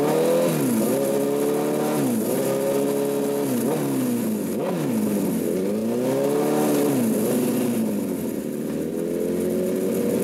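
Honda CBR1000RR inline-four engine revving with the bike on a rear stand, its pitch repeatedly climbing, holding high and then dipping, about five times.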